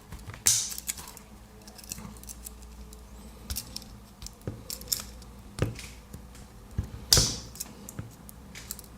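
Small metallic clicks and handling noise from a Swiss Army knife's tools being pulled open and snapped shut, with two louder snaps about half a second in and around seven seconds.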